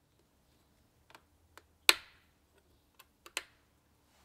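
A wooden board being set against an aluminium fence and held with toggle clamps: a handful of sharp clicks and knocks, the loudest about two seconds in with a brief ring after it.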